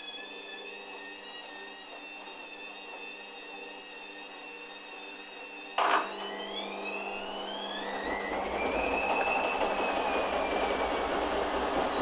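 Hoover Dynamic washing machine's motor whining steadily as the drum turns. Then a sharp knock comes about six seconds in, after which the whine climbs in pitch as the drum speeds up into a spin, with a rushing sound and a low rumble building.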